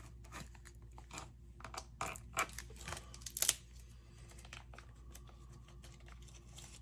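Light clicks and taps of small airsoft gearbox parts and tools being handled on a workbench, clustered in the first three and a half seconds.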